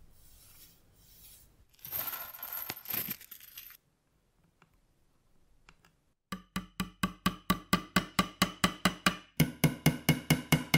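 Small cross-peen hammer tapping round-headed metal tacks into a varnished wooden foosball side rail: fast, even, ringing taps about four a second, starting about six seconds in, with a brief pause before a second run. Before the tapping there is a short scratchy rustle lasting about two seconds.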